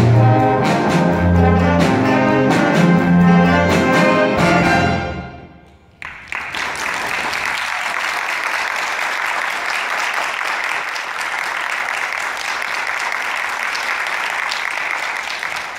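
A school jazz band of saxophones, trumpets, trombones, keyboard, guitar and drum kit plays its final bars, the last chord dying away about five seconds in. About a second later the audience breaks into steady applause.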